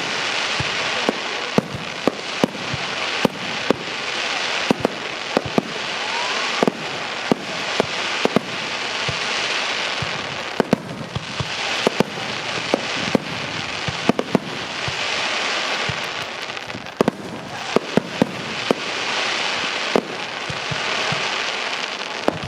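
Aerial fireworks display: frequent sharp shell bursts, often several in a second, over a continuous crackling hiss that swells and fades in waves.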